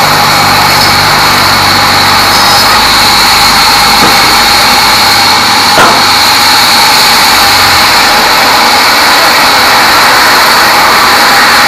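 Band sawmill running steadily and loud, its blade sawing a teak log, with a steady high whine over the cutting noise.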